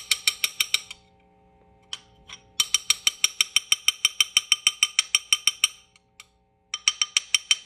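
Spoon clicking rapidly against the side of a bowl while stirring melted chocolate, a fast even ticking of about five clicks a second. It comes in three runs, with short pauses about a second in and around six seconds in.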